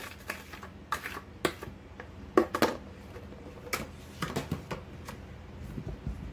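Cauliflower florets and a plastic slotted spoon knocking against a glass baking dish: scattered light clicks and taps, the loudest about two and a half seconds in.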